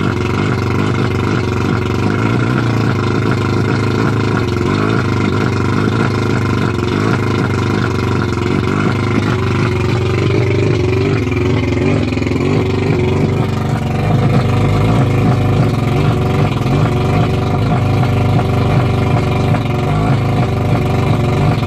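1989 Mercury 100 two-stroke outboard motor running steadily at a fast idle of roughly 1200–1400 RPM.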